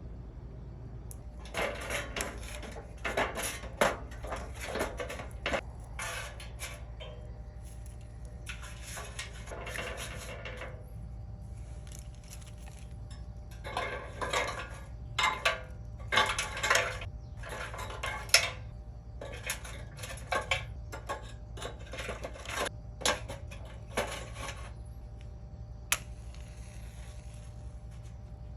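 Firewood and kindling being handled for a campfire: sticks knocking together and snapping in irregular bursts of clatter, with pauses between.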